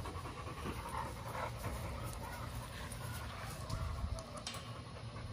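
American bully dog panting with its mouth open.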